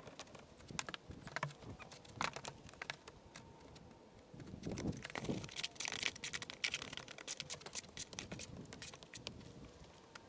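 Rapid, irregular clicks and knocks of stones and tools being handled, sped up in a timelapse, with a few heavier knocks.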